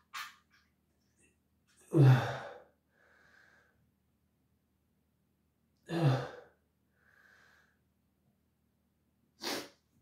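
A person groaning twice, each groan falling in pitch, then a short breath near the end: the sounds of someone in discomfort straining on the toilet with diarrhoea.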